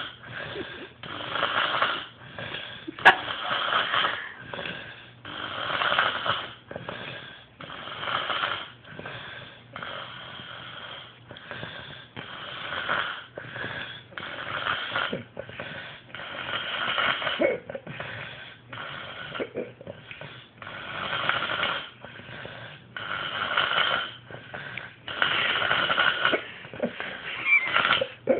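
A woman snoring, a rasping snore on each breath coming roughly every one to two seconds. A single sharp click sounds about three seconds in.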